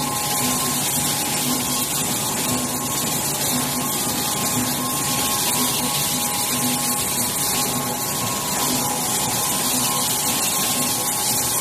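Automatic servo-driven cosmetic tube screen printing machine running: a steady mechanical hiss and hum with a high whine. A low beat repeats about once a second with the machine's cycle.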